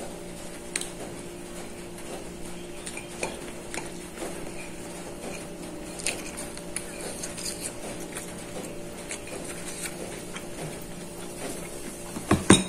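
Scattered small clicks and clinks of fingers and food against a ceramic plate while eating rice by hand, with a cluster of louder clinks near the end. A steady low hum runs underneath.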